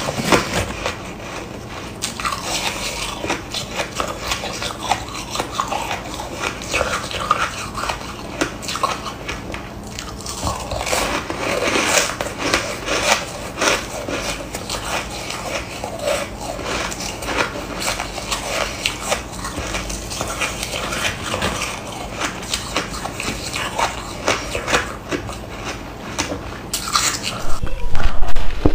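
Close-up crunching and chewing of soft white snow ice, a rapid run of small crisp crunches. Louder bites come near the end.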